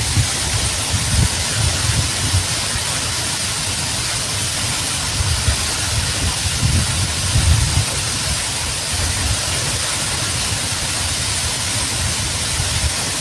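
Heavy rain pouring down in a steady, even hiss, with a low rumble underneath.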